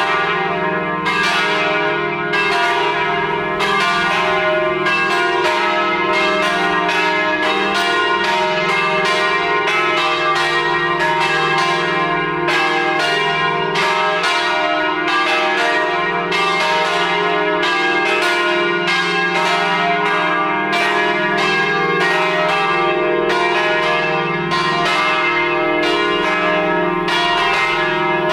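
Three Paccard bronze church bells tuned E-flat, F and G, swinging and ringing all together in full peal to call the faithful to Mass. Their strokes come about every half second to second and overlap in one continuous ringing.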